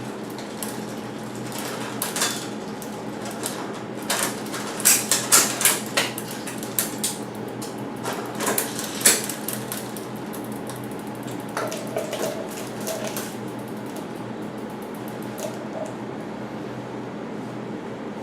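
Irregular metallic clicks and clinks of bicycle drivetrain parts and tools being handled, busiest in the middle, over a steady low hum.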